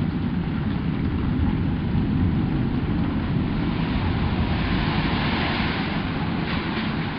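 Thunderstorm: a continuous low rumble of rolling thunder over a steady hiss of rain, with no sharp claps.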